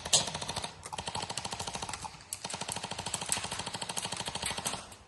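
Airsoft gun firing on full auto: three bursts of rapid, evenly spaced shots, the last and longest lasting about two and a half seconds.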